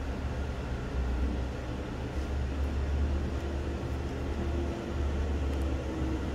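Steady low rumble of background machinery, with a faint hum joining about a second in and a few faint small ticks.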